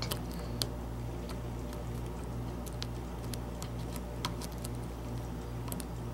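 Sparse small metallic clicks and ticks of lock picking tools working the wafers inside an old American Series 50 wafer padlock, a few clicks spread irregularly over several seconds.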